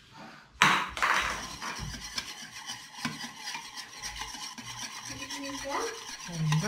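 Wire balloon whisk beating a thin milk batter in a stainless steel saucepan, the wires scraping and rattling against the pan in fast, steady strokes. It starts suddenly about half a second in.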